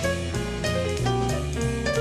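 Big-band jazz playing from a vinyl record: horns and piano over bass and a busy drum kit.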